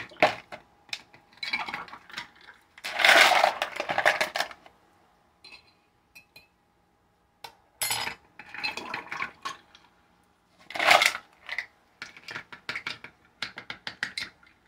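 Ice cubes scooped with a plastic scoop and clattering into a plastic pitcher, in several bursts of rattling clinks with a pause partway through; the loudest burst is about three to four seconds in.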